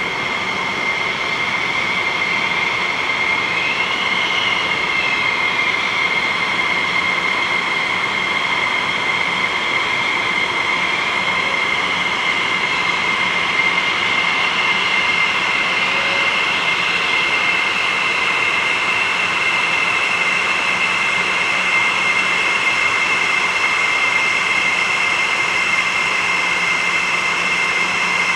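Jet engines of parked F-16 Fighting Falcons running at ground idle: a steady loud whine with two high tones over a rushing noise, the pitch briefly rising and falling about four seconds in.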